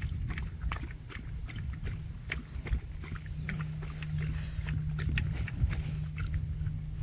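Puppies playing together, making many short grunts and yips over a steady low rumble.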